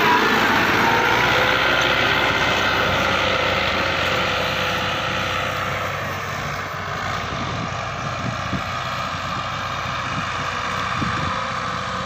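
Diesel tractor engine running steadily under load while pulling a laser land leveler, a steady drone that grows gradually fainter over the first half.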